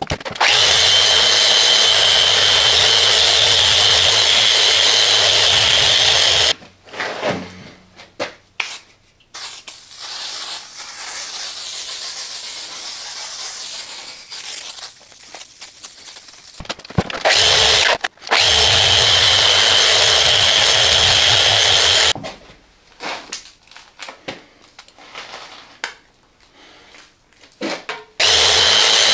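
Handheld electric power tool running in bursts of several seconds, with a steady high whine over its motor hum. Quieter rubbing and handling noises fill the gaps between bursts.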